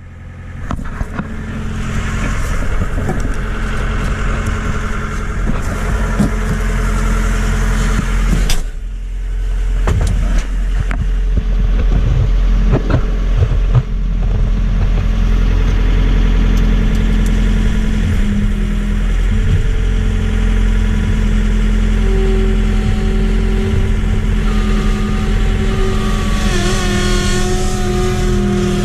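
A vehicle engine running steadily, with its pitch rising near the end as it speeds up.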